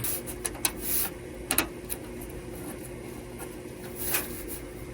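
Sheet-metal furnace door panel being handled and fitted into place: scraping and rubbing with a few sharp knocks, over a steady low hum.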